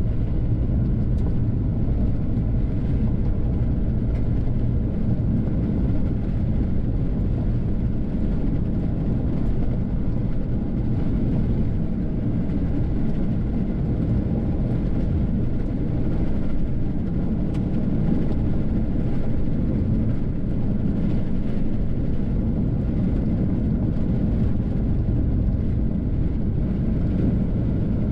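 Steady low rumble of a car driving slowly on a gravel road, heard from inside the cabin.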